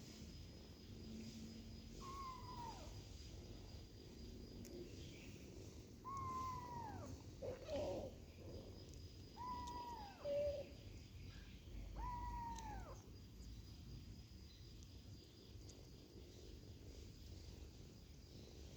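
A kitten meowing: four high calls a few seconds apart, each about a second long and falling in pitch at its end, with a rougher cry between the second and third.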